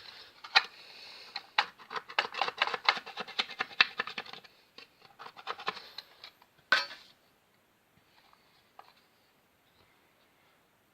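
Thin filler knife scraping old paint off a wall socket's back box in quick rasping strokes for about four seconds, with a few more strokes around six seconds in. A single sharp knock comes about seven seconds in.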